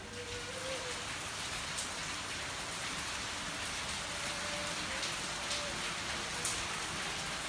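Steady heavy rain pouring down, a dense even hiss, with a few sharper drops standing out now and then.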